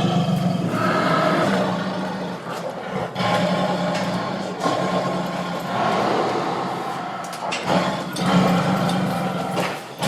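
Tiger roaring and growling angrily: a string of long, rough roars one after another, with short breaks about three, four and a half and seven and a half seconds in.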